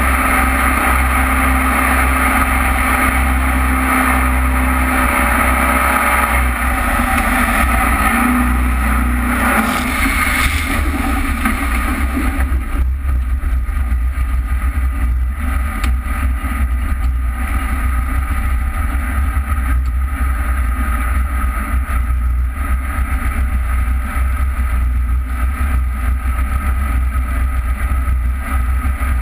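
Jet boat engine running under way, heard from on board with rushing water and wind. About twelve seconds in the higher part of the noise drops away and the engine carries on more steadily.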